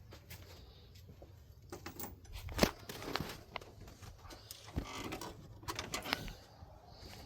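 Scattered clinks and knocks of hand tools on metal while an oil pump is being unbolted, the loudest knock about two and a half seconds in and a busier patch of clicks near the end.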